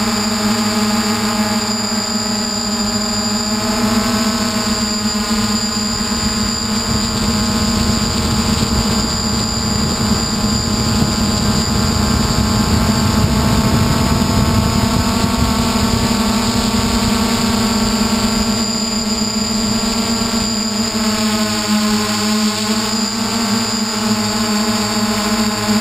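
A hexacopter's electric motors and propellers whining steadily, heard from a camera on the craft, with a rush of air noise swelling in the middle and the motor pitch shifting slightly near the end.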